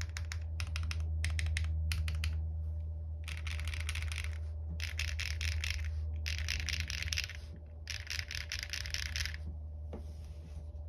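Jris65 mechanical keyboard with lubed Zaku switches on a POM plate, typed on in quick bursts of keystrokes with short pauses between them. The typing thins out near the end.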